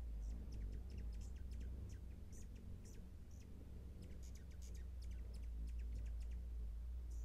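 Hummingbirds at a feeder giving short, high chip and squeak notes, scattered and thickest a little past the middle, over a steady low rumble.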